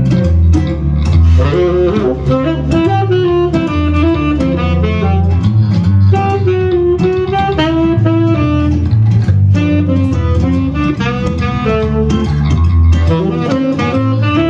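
Live jazz band playing an instrumental passage: a saxophone carries the melody over nylon-string acoustic guitar and electric guitar accompaniment with a bass line underneath.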